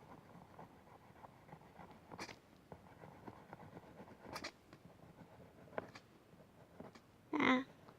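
Coloured pencil scratching lightly on paper while shading, with a few sharper strokes. A short, louder noise comes near the end.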